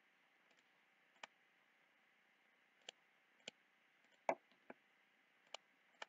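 Computer mouse clicking: about seven single sharp clicks at uneven intervals against near silence.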